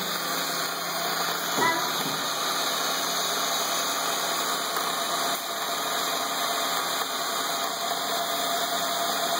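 Small Lego electric motor running steadily, whirring through its gear train and pulley wheels as it winds the string cable of a Lego funicular.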